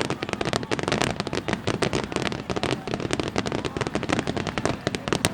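Wide starmine fireworks barrage: a rapid, unbroken string of shell bursts, many bangs and crackles a second overlapping one another.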